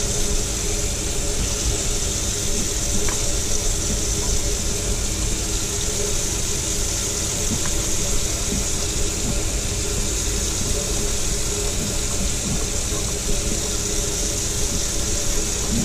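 A steady mechanical hum with a constant hiss over it, like an engine or motor running at a constant speed, unchanged throughout.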